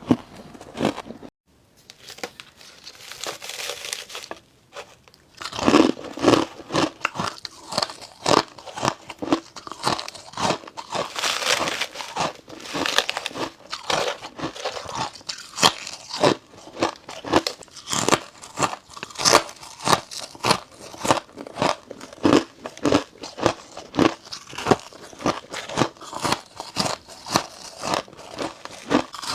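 Frost ice being bitten and chewed close to the microphone: crisp crunches in quick succession, roughly two or three a second. After a short quiet patch, steady crunching runs from about six seconds in.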